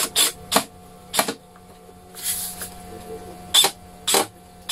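About six short, sharp clicks and knocks, irregularly spaced, from a cordless drill-driver and the metal frame of a table being put together, with a softer rustle about two seconds in.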